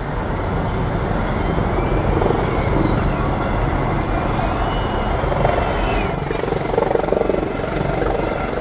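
Arfun Pro 95mm brushless micro quadcopter in fast flight, its motors giving a high whine that rises and falls with throttle over a steady rushing noise.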